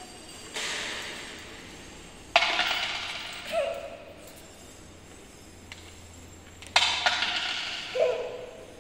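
Coins dropped through the slot of a wooden offering box, clinking in twice, each drop tailing off over about a second with ringing and church echo.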